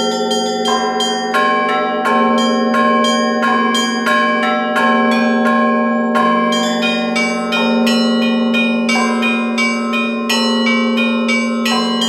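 Russian Orthodox church bells rung in a continuous peal: quick, overlapping strikes of smaller bells ringing over the steady hum of a larger bell.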